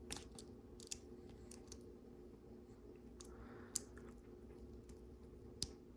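Faint, scattered clicks and taps of small plastic LEGO pieces being handled and pressed together, with a few sharper clicks.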